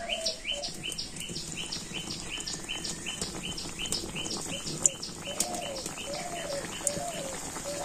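Birds chirping: a quick high chirp repeated about three times a second, with lower arched calls near the start and again from about five seconds in. Underneath is the faint sizzle of balushahi dough frying in warm oil in an aluminium karahi.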